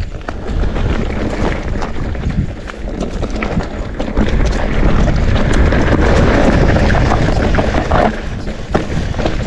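Mountain bike riding down a dirt trail: wind rushing over the microphone, with tyre noise and many sharp clacks and rattles as the bike jolts over bumps. The wind rush gets louder about halfway through.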